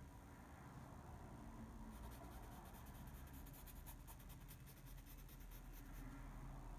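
Faint scratching of a wooden graphite pencil on paper in short sketching strokes, the strokes coming thicker from about two seconds in.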